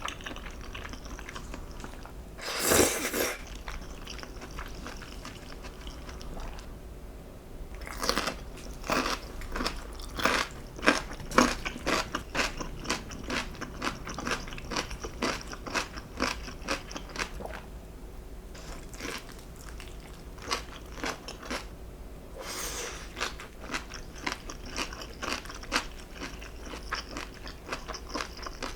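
Crunchy food bitten and chewed close to the microphone: a few louder bites, then a long run of rapid, sharp crunches while chewing.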